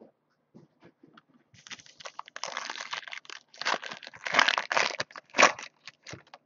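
Foil wrapper of a Tier One baseball card pack being torn open and crinkled by hand. A few faint ticks come first, then the crinkling starts about a second and a half in, with its loudest rips near the end.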